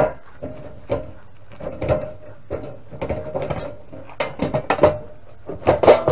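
Metal cover of a breaker panel being unscrewed and lifted off: a run of clicks, taps and metallic knocks, coming thicker and louder near the end as the cover comes free.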